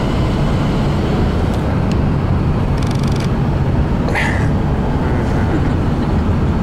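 Boat motor running steadily under way, a constant low rumble, with a brief high squeak about four seconds in.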